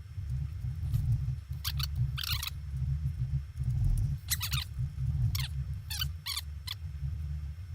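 Plastic Rubik's Cube layers being twisted by hand: short clicking rattles, about seven of them at irregular intervals, over a steady low hum.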